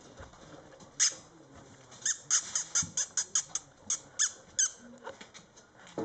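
Mastiff puppy squeaking: one short high-pitched squeak about a second in, then a quick run of about a dozen squeaks, several a second, stopping near five seconds in.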